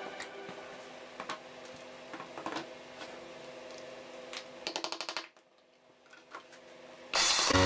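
Light clicks and knocks of PVC pipes and plastic fittings being handled and pushed together, with a quick run of rattling clicks about five seconds in. Faint background music drops out at about the same point, and music starts again loudly near the end.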